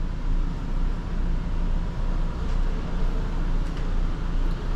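Air conditioner running with a steady low hum and a hiss of moving air.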